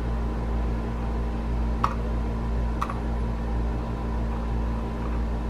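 Two short clicks about a second apart as a small flathead screwdriver engages and turns a set screw in a Savage 720 shotgun receiver, over a steady room hum.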